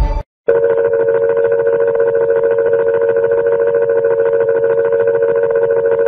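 A steady electronic tone of two close low notes held without any change, starting after a brief silence about half a second in.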